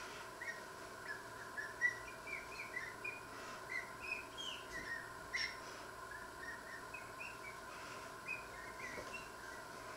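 A glass squeaking as it is rubbed dry with a cotton tea towel: many short, irregular high squeaks that slide up or down in pitch, thinning out near the end. A faint steady hum runs underneath.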